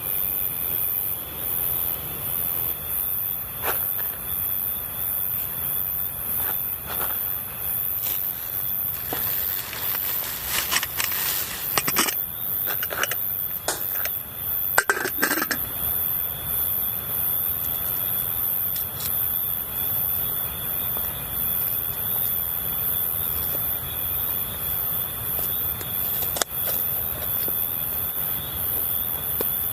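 Steady rushing water with insects chirring steadily over it. A run of sharp clicks and knocks comes in about a third of the way in and stops around the middle.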